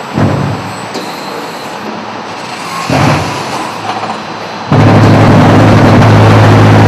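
Concrete block plant machinery running: a couple of short clanks, then from about five seconds in a loud, steady low hum with a hiss over it.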